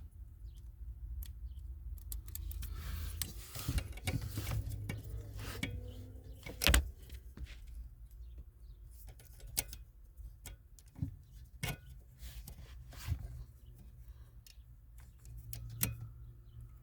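Scattered clicks and light clatter of handling, with one louder knock about seven seconds in, over a steady low hum.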